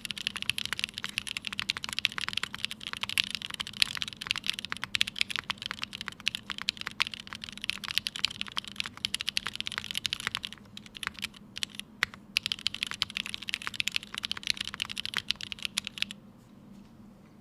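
Typing on a Tomo mechanical keyboard with an aluminium plate in an O-ring mount, lubed and filmed Cherry MX Black linear switches with Kailh stems, and GMK Serika keycaps: quick, steady keystrokes that thin to a few separate strokes a little past halfway, pick up again, then stop about a second before the end.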